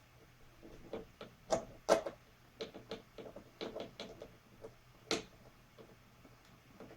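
Irregular clicks and taps of a screwdriver and Phillips screw being fumbled against the exercise bike's parts while trying to start the screw at an awkward angle, with a few sharper knocks at about one and a half, two and five seconds in.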